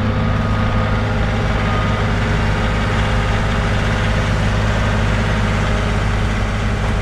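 John Deere compact tractor's diesel engine running at a steady speed while the tractor drags snow with a box blade.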